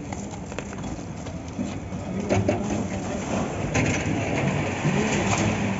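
Construction-site noise during a concrete slab pour: a machine engine running steadily under scraping and clattering, with faint voices of workers.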